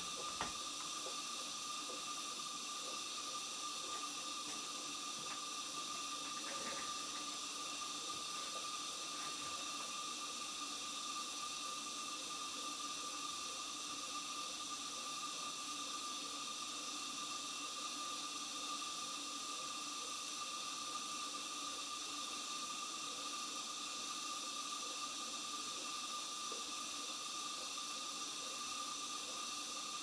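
Model steam plant fired by a Castle steam boiler, standing in steam: a steady hiss with a few faint constant tones running through it.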